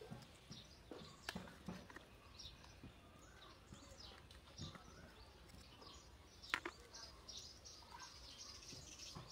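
Faint small birds chirping now and then over quiet background noise, with one sharp click about six and a half seconds in.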